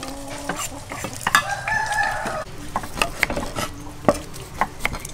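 A rooster crows once, for about a second, in the second second, among short clicks and knocks of a knife against a metal tray and then knife cuts on a wooden chopping board.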